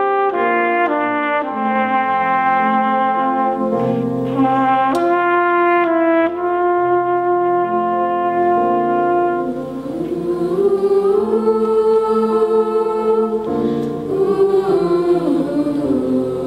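Live music from a small band: a trumpet plays a slow line of held notes over the accompaniment. About ten seconds in, voices come in singing.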